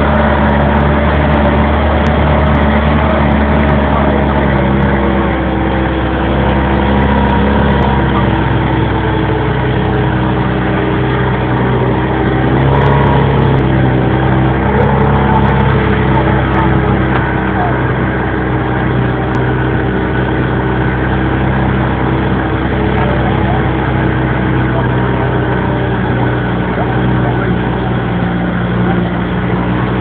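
Jeep engine running at low speed, heard from on board as it drives a dirt track, its note sinking over the first few seconds and shifting a few more times with the throttle.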